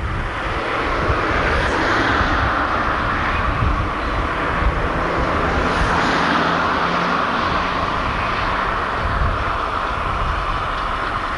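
Steam locomotive and its train of coaches running into a station: a steady rushing sound with no distinct chuffs, with wind buffeting the microphone.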